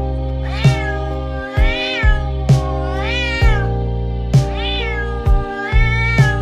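A cat meowing about four times, roughly every second and a half, each meow rising and then falling in pitch, over background music with a steady beat.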